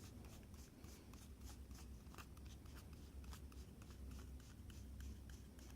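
Tarot cards being handled: faint soft clicks and rustles at irregular spacing, over a low steady hum.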